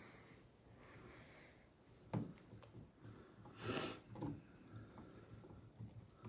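Quiet room with a sharp knock about two seconds in, then a short, loud breath through the nose about a second and a half later, followed by a few light clicks.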